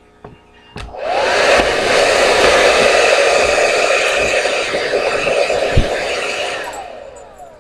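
Hand-held hair dryer switched on about a second in, its motor spinning up to a steady loud blowing whir, then switched off near the end, the pitch falling as it winds down. A sharp knock comes partway through.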